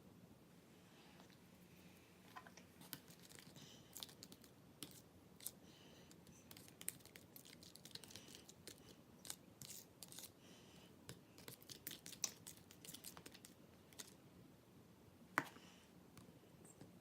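Faint, irregular small clicks and crackles of something being handled close by, scattered all through, with one sharper click near the end.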